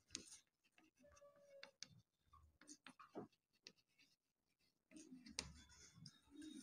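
Faint handwriting: short, irregular scratching strokes of a pen.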